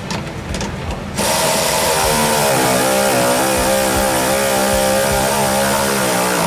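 Cordless electric ratchet starting about a second in and running for about five seconds as it drives a bumper mounting bolt, its whine wavering and dipping briefly in pitch.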